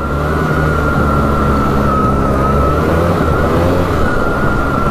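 Polaris Big Boss 6x6 ATV's engine running steadily while riding along a trail, with a steady high whine above the engine note.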